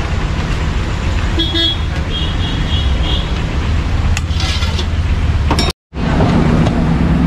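Steady low rumble of a busy street, with short vehicle horn toots about one and a half seconds in and again from two to three seconds in. A brief clatter follows near four and a half seconds, then the sound drops out for a moment and comes back.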